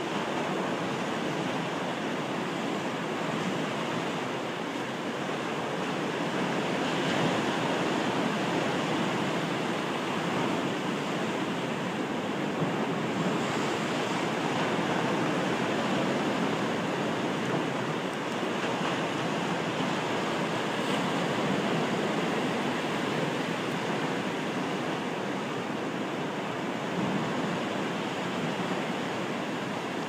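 Atlantic surf breaking and washing over low granite rocks: a continuous rush of water that swells and eases every several seconds.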